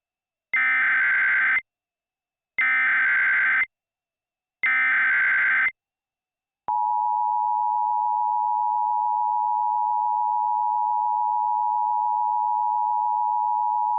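Emergency Alert System SAME header: three identical one-second bursts of buzzy digital data tones, about a second apart. About seven seconds in, the steady two-tone EAS attention signal starts, a shrill dual tone that holds unbroken. Together they open a new emergency alert broadcast.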